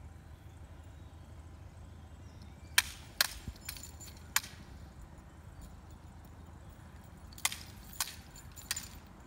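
Practice blades striking each other in a sparring bout: sharp clacks, four in quick succession about three seconds in, then three more near the end.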